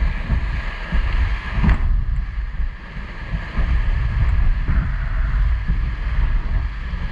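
River rapids rushing around an inflatable raft, with heavy wind buffeting on the microphone. A single sharp knock comes about a second and a half in.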